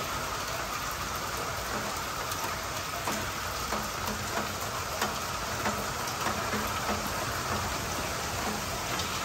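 Steady rain from a tropical storm falling on a screened pool enclosure and patio, with light wind and a few separate drops ticking now and then.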